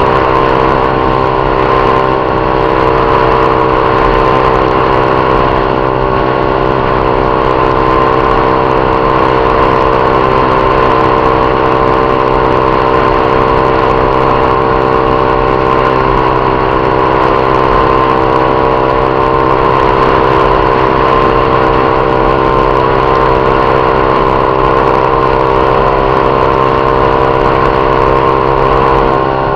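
Honda CG Titan 150's single-cylinder four-stroke engine running at a steady speed, its pitch unchanging throughout.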